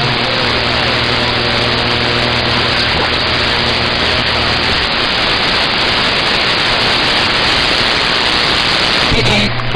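CB radio receiver hissing with loud, steady static between transmissions, with faint wavering whistles and a low hum under it. Near the end the noise changes as another signal comes in.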